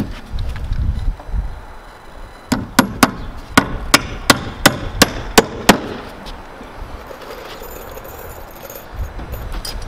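Claw hammer driving a nail to toenail the foot of a 2x4 brace down onto the wood floor: about ten sharp strikes in quick succession, starting a couple of seconds in and stopping about halfway through.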